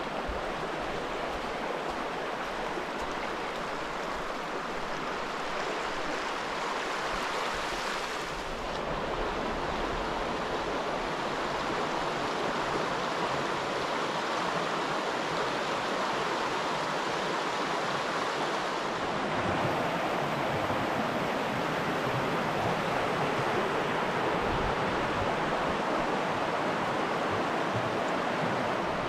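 A stream rushing steadily, a little louder after about ten seconds.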